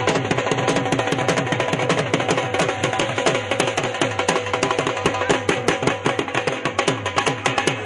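Music driven by fast, dense drumming, with many strokes each dropping quickly in pitch in the bass.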